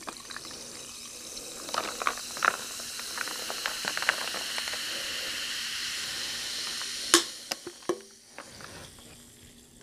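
AHA apple-ginger sparkling water poured from a can into a tumbler, the pour and fizz making a steady hiss. There are a few light clinks along the way and a sharp click about seven seconds in.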